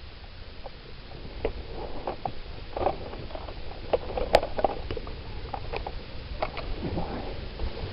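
Footsteps crunching and rustling irregularly through dry leaves and brush, with one sharp snap or click about four seconds in.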